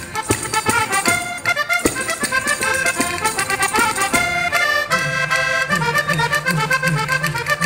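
Live traditional saltarello dance music led by a diatonic button accordion (organetto), over a steady percussive beat; a repeating low bass figure comes in about five seconds in.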